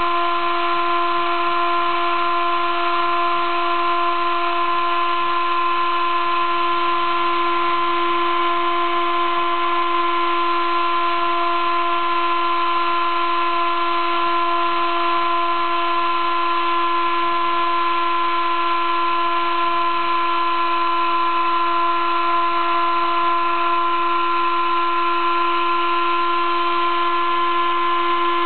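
Sable-2015 desktop CNC mill engraving acrylic with a V engraving cutter: a steady high whine made of several tones, over a constant hiss from the cutting.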